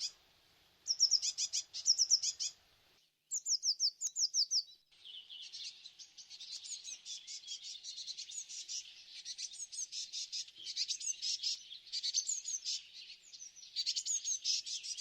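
Small songbirds singing: two phrases of quick, high, repeated falling notes in the first five seconds, then a dense run of chattering, twittering notes.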